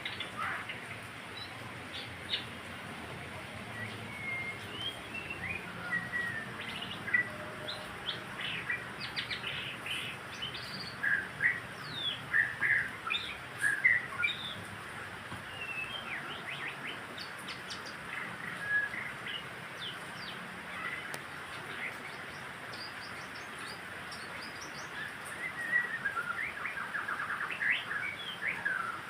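White-rumped shama (murai batu) singing: a varied string of short clear whistles, slurred notes and quick chirps over a steady background hiss. The song is densest about a third of the way in and again near the end, with a sparser stretch in between.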